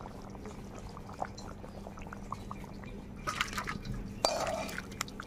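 Thick tuna curry bubbling in the pan, with scattered small wet pops, and two short clattery patches about three and a half and four and a half seconds in.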